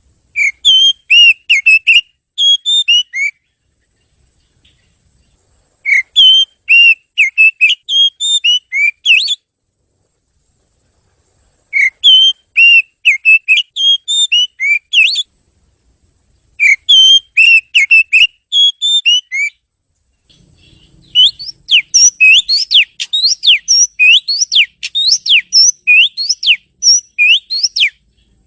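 Oriental magpie-robin (kacer) singing: loud, clear whistled phrases of a few seconds each with silent pauses between them. Near the end comes a longer run of rapidly repeated rising notes.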